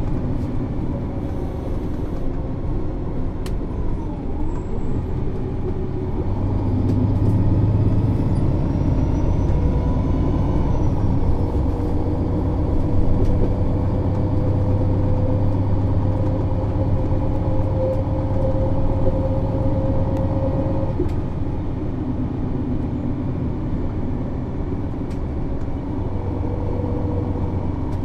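Diesel engine of an MAN Lion's City NÜ 273 city bus with a Voith automatic gearbox. It is running under load and grows louder from about six seconds in, with a tone that creeps slowly upward, then eases off after about twenty seconds to a quieter running note.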